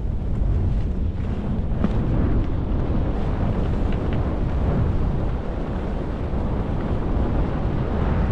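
Wind rushing over a skier's helmet or chest camera microphone during a fast run down a groomed slope: a steady low rumble with the hiss of skis on packed snow and a few faint clicks.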